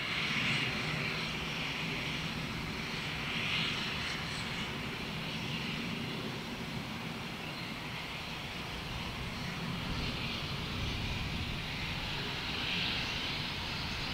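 Steam locomotive 7029 Clun Castle, a GWR Castle-class four-cylinder 4-6-0, making a steady, loud roar of steam over a low rumble. The hiss swells briefly about half a second in, again at around three and a half seconds, and near the end.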